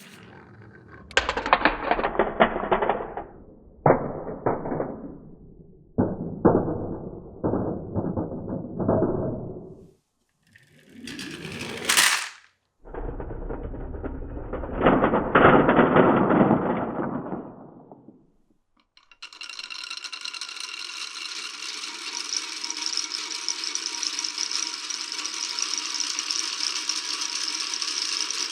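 Glass marbles rolling and clattering down a wooden marble-run course, in several runs with sharp clicks as they drop and hit the blocks. Around the middle comes a brief rising whirr. Near the end a steady rattle sets in and holds.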